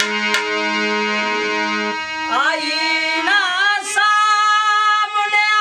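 Harmonium playing held chords. About two seconds in, a man starts singing a ghazal over it in long, wavering notes.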